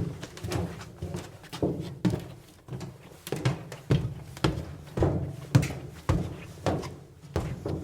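Footsteps in tennis shoes walking across a metal bleacher aisle, about two steps a second. Each step is a hollow thud with a short metallic ring.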